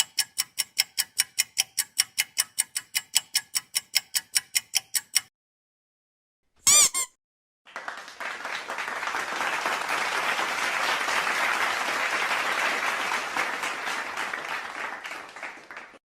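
A run of three sound effects. First, fast pitched ticking, about four ticks a second for five seconds. Then a brief warbling high squeak, and from about eight seconds in, crowd applause that swells and then fades out.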